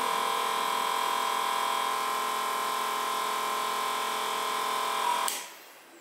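A 12 V DC motor pump and small cooling fan of a homemade refrigeration rig running with a steady electric whine. About five seconds in a click cuts it off and it stops.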